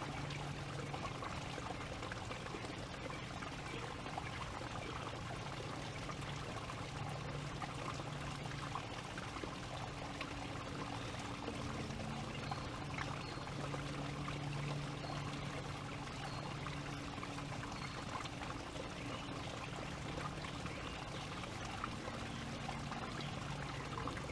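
Steady rushing background noise, like flowing water, with a faint low hum that swells and fades a few times.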